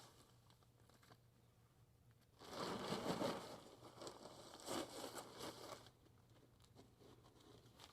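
Topsoil being poured from a plastic bag: a rustling, crunching hiss of bag and soil that starts a couple of seconds in and lasts about three seconds.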